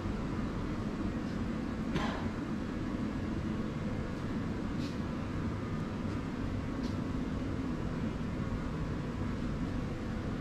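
A malt roasting plant's machinery running with a steady industrial drone, holding a low hum and a few faint steady tones. One brief sharp knock comes about two seconds in, and two faint clicks follow later.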